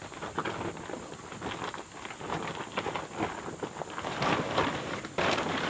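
Irregular crackling and rustling from handling a plastic tarp and the plywood sheets stacked under it, growing suddenly louder and denser near the end.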